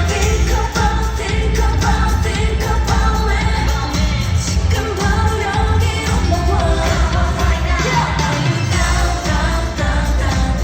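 Live K-pop song: a woman singing over a loud pop backing track with heavy bass. About eight seconds in, the bass slides down and drops out briefly before coming back.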